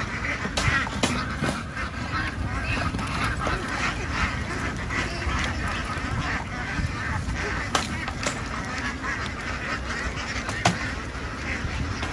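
A large, crowded flock of ducks quacking all at once in a dense, steady din, with a low rumble underneath.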